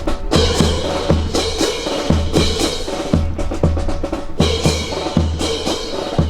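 Percussion accompanying a rifle drill: bass drum and snare drum playing a steady, repeating beat.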